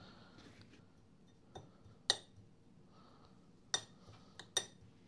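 A metal spoon clinking against a glass martini glass as crushed biscuit crumbs are spooned in and pressed down: about five sharp clinks, two close together near the end.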